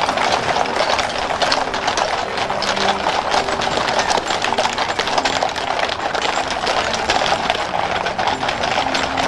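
Hooves of a large team of Belgian draft horses clopping on pavement close by, many steps overlapping into a dense, continuous clatter.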